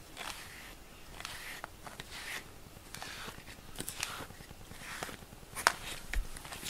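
A cat's fur being brushed with a rubber grooming brush: a soft swishing stroke about once a second, with a sharp click near the end.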